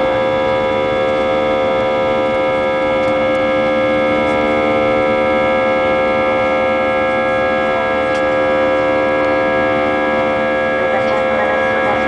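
Airbus A320 jet engines and rushing air heard from inside the passenger cabin in flight just after takeoff. A steady, loud drone: several held whining tones over an even low rumble, unchanging throughout.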